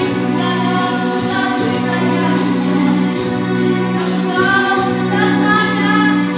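Children's choir singing a song over steady held low accompanying notes.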